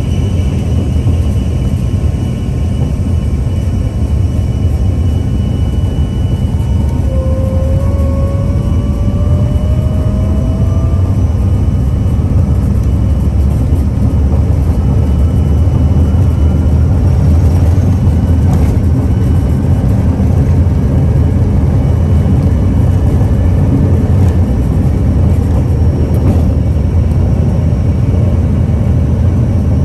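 Cabin noise of an Embraer ERJ145 on its takeoff roll, its rear-mounted Rolls-Royce AE 3007 turbofans at takeoff power: a loud, steady low rumble that grows a little louder partway through. A faint whine rises slowly in pitch from about seven seconds in as the jet picks up speed.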